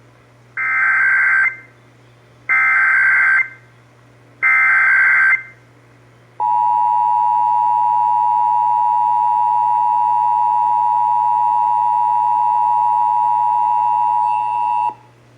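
Emergency Alert System header: three one-second bursts of SAME data tones about two seconds apart. Then comes the steady two-tone EAS attention signal, held for about eight and a half seconds before it cuts off. The sequence marks the start of an EAS required monthly test.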